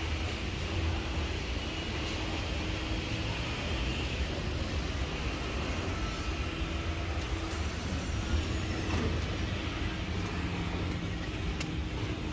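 Steady low mechanical rumble and hiss from running ventilation plant, with a faint steady hum. A few faint clicks come near the end.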